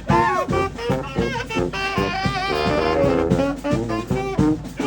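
Live street brass band playing: horns over a steady drum beat.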